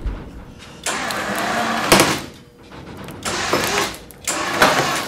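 Electric winch running under load in three short bursts, about a second and a half, a second and half a second long, hauling a heavy machine skid over steel pipe rollers.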